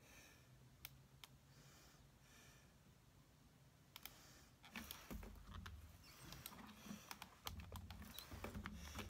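Faint taps, clicks and paper rustles from hands handling cardstock and stamping supplies on a tabletop. The handling gets busier from about four seconds in, with low bumps among the clicks.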